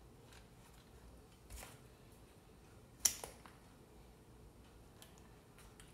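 A single sharp metallic click from wire strippers closing on a wire, with a lighter click right after it. Around it there is only quiet handling of the wire and the meter.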